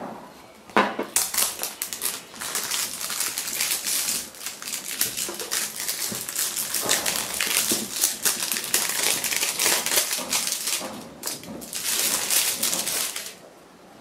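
Packaging being handled and opened: a dense, crackling rustle of clicks, starting about a second in with a few short lulls, and stopping shortly before the end.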